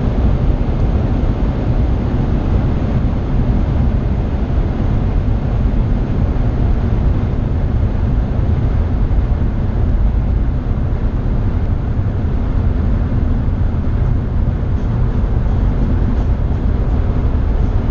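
Steady low in-cabin drone of a BMW 330i E90 with its 3.0-litre N52 straight-six cruising fast on the autobahn, a mix of engine, tyre and wind noise with no change in pitch.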